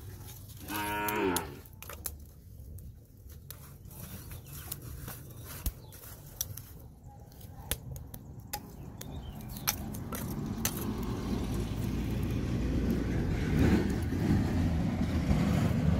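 Wood and charcoal crackling and knocking in a clay charcoal stove as lumps of charcoal are added to the burning sticks. A short animal call comes about a second in, and a low rushing noise builds over the last few seconds.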